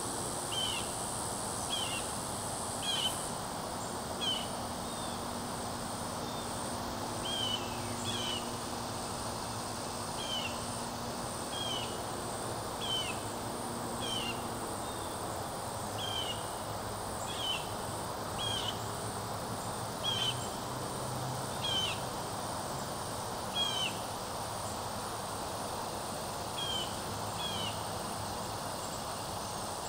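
Outdoor nature sound: a bird repeats a short chirp every second or two over a steady high-pitched insect drone.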